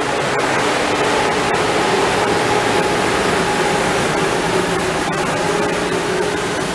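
Amtrak Acela trainset rolling past the platform as its trailing electric power car goes by: a steady rushing noise with a faint hum and scattered light clicks.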